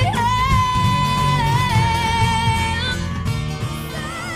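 A woman singing live over acoustic guitar: her voice flips abruptly upward into a high note, a voice break of the kind the compilation collects, and she holds it with vibrato for about three seconds. Another singer's wavering line fades in near the end.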